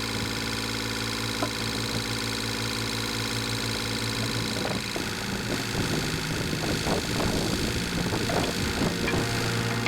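Heavy machine's diesel engine running steadily at low speed, with a scatter of clanks and knocks starting about halfway through.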